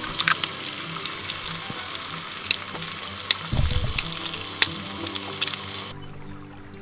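Bacon and an egg sizzling and crackling in a steel frying pan on a gas camp stove, with a brief low rumble about halfway. The frying stops suddenly near the end.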